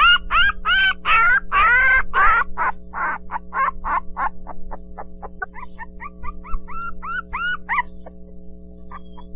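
Puppy yelping in a quick run of short, high-pitched, rising-and-falling cries, about three a second, fading away by the middle. A second, quieter run of yelps comes a little later. A steady low hum lies underneath.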